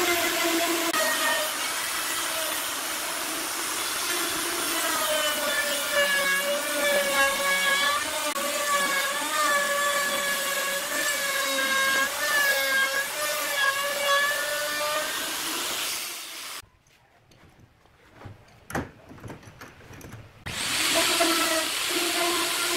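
A power tool cutting wood: a loud motor whine over a hiss of cutting, its pitch dipping and recovering as it loads up. It stops about two-thirds of the way in, a few knocks follow, and it starts again near the end.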